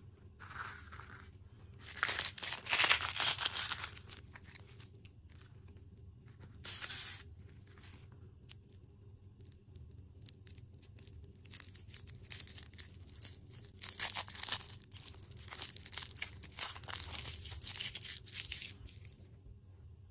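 Crinkling and tearing of plastic food packaging, in irregular bursts with quiet gaps, the longest run in the second half.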